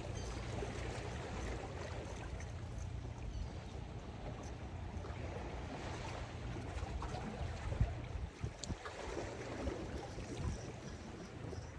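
Water washing against jetty rocks, with wind on the microphone. There are a couple of sharp knocks about eight seconds in.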